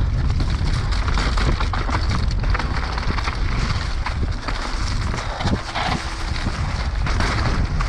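Mountain bike rattling and clattering loudly as it rolls over a rough trail, a dense, irregular run of clicks over a steady rumble of wind on the microphone.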